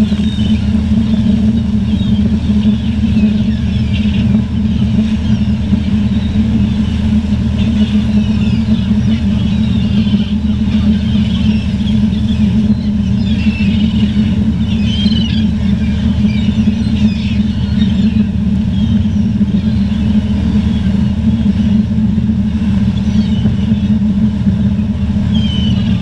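A steady low engine drone, with scattered calls of seagulls above it.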